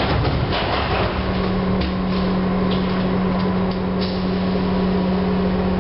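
Inside a Chichibu Railway 1000 series (ex-JNR 101 series) electric train car standing at a station: a steady low hum over a rumbling background, with a few faint clicks.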